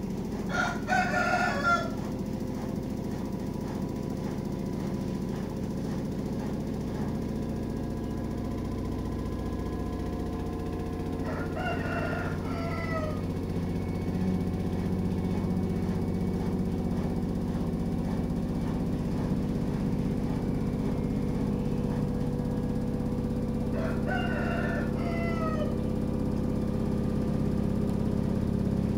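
A rooster crows three times, about eleven seconds apart, over the steady low hum of a running washing machine with a few held tones in it.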